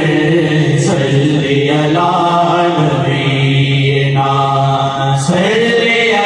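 Naat, an Islamic devotional song, sung by layered voices: a long held low note runs under a higher, gliding melodic line. About five seconds in, the low note ends and the voices rise.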